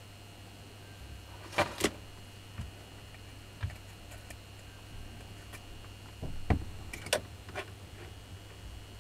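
Scattered sharp clicks and light knocks of small metal parts and tools being handled during the repair of a power drill, a few single ones and a few close pairs, over a steady faint hum.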